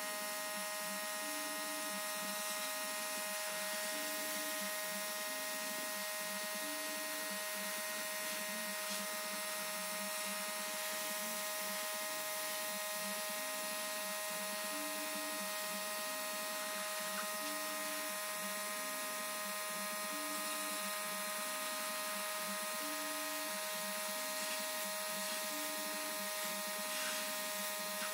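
A small electric motor running steadily with a constant buzzing whine. A faint repeating pattern of short low notes sits underneath it.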